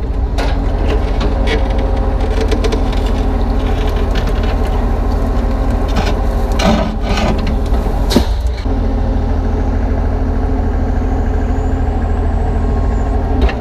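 Kubota U35-3 mini excavator's diesel engine running steadily under hydraulic work, with a few knocks and scrapes about halfway through as the bucket works against concrete.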